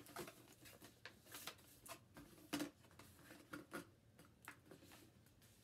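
Packaged supplies being handled: faint, irregular rustles and clicks of plastic wrapping, with one louder clack about halfway through.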